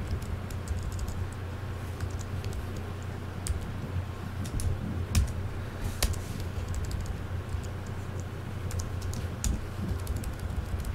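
Computer keyboard keystrokes: irregular, scattered key clicks over a steady low hum.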